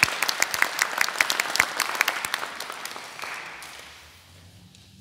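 Audience applauding, with single sharp claps standing out, dying away about three to four seconds in.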